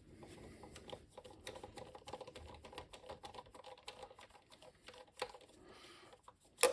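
Light, irregular clicking and tapping of small computer parts and screws being handled during reassembly, with one sharp, louder click at the very end.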